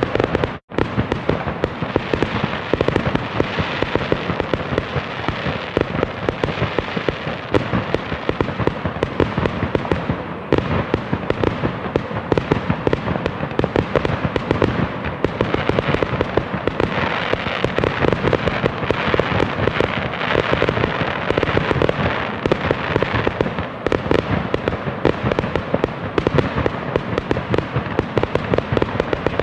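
Fireworks display going off continuously: dense, overlapping bangs and crackles with no let-up. There is one momentary gap a little under a second in.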